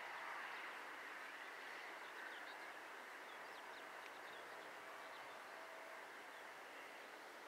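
Faint outdoor ambience: small birds chirping in short, high calls over a steady, even background hiss that slowly fades.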